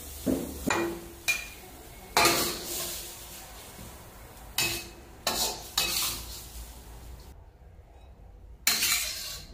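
Metal spatula scraping and knocking against a wok as stir-fried cauliflower is scooped out onto a plate: about eight sharp scrapes and clanks at irregular intervals, with a quiet gap near the end.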